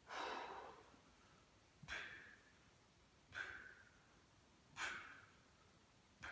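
A man's forceful exhalations, one with each sprinter-crunch rep: five breaths about a second and a half apart, each starting sharply and trailing off.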